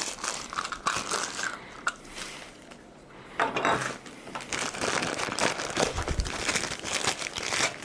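Plastic packaging crinkling and rustling as small vacuum attachments are unwrapped and handled, in irregular bursts with a few light clicks.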